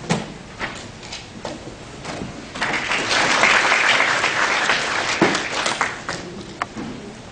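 Audience applause: scattered claps build into a few seconds of full applause about halfway through, then die away to a few last claps.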